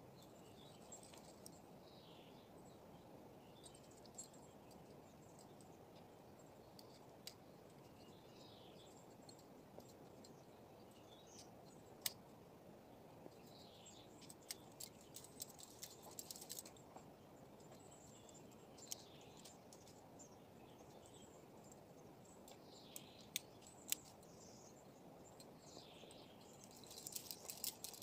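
Near silence: faint steady outdoor rush with scattered bird chirps and a few sharp clicks, the clicks clustering in short runs about halfway through and near the end.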